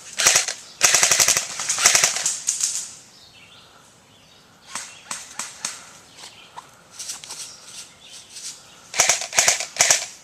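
Airsoft guns firing full-auto, several bursts of rapid sharp snapping shots with short pauses between them; the longest burst runs about two seconds near the start and another comes near the end.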